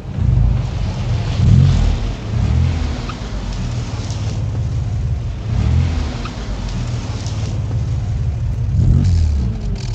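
A car engine running and revving, its pitch swelling and falling back a few times: near the start, around the middle and near the end.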